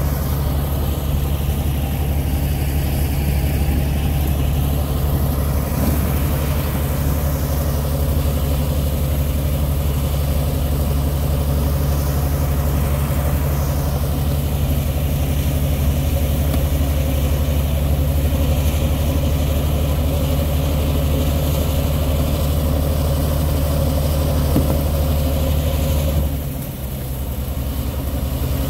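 Tugboat North Carolina's diesel engine running with a steady, deep drone, heard from close alongside the hull. About two seconds before the end the deepest part of the drone drops away and the sound briefly gets quieter.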